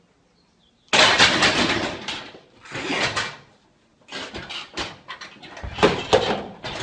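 A loaded barbell with rubber bumper plates crashes down onto the rack's steel safety arms about a second in, with a loud clatter that dies away, followed by more bangs and thumps as the failed lift ends and the lifter tumbles off the bench.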